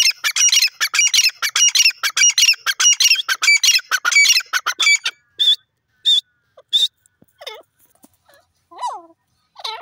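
Grey francolin calling: a rapid run of loud, shrill repeated notes for about five seconds, then three separate notes, then softer, lower calls with falling pitch near the end.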